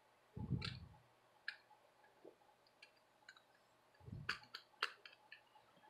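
Light plastic clicks and two soft knocks as an Xbox 360 controller battery pack and its AA batteries are handled: one knock near the start, a few scattered clicks, then a knock and a quick run of clicks just after four seconds in.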